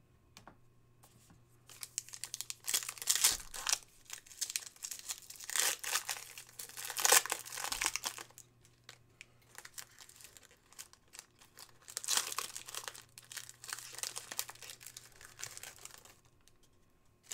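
Foil wrapper of a trading-card pack being crinkled and torn open by hand, a crackling rustle in two long bouts with a short lull between.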